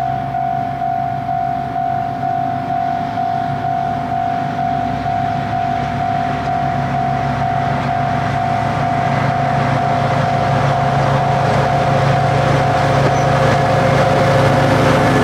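Two DD40 diesel locomotives running in tandem, hauling hopper wagons at low speed, their engine sound growing louder as they draw near and pass. A steady ringing tone pulses about twice a second through the first half.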